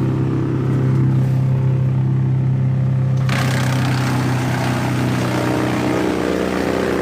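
Timberwolf 230 wood chipper running steadily at working speed. About three seconds in, a dense shredding hiss joins the engine note and carries on as laurel hedge cuttings are fed through and chipped.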